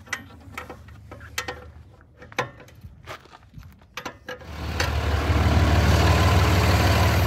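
A series of sharp metallic clicks and knocks from tools working on a pickup's wheel, then about four and a half seconds in a Dodge Ram 2500 pickup's engine comes in loud and runs steadily.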